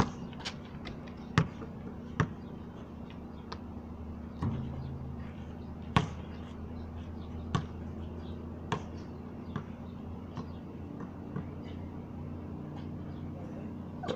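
Basketball bouncing on a concrete court: irregular sharp thuds, the loudest about one and a half seconds, two seconds and six seconds in.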